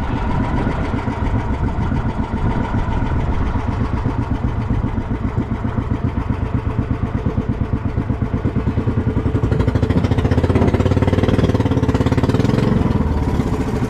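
Small fishing boat's engine running steadily under way, a fast even chugging that grows a little louder about ten seconds in.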